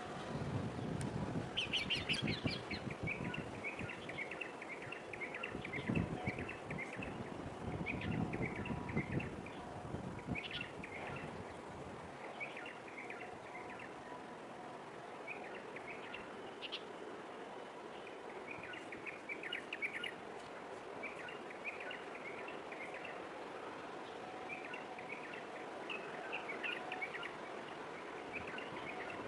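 Small birds chirping, short clusters of quick high notes repeating again and again, with low rumbling underneath for roughly the first ten seconds.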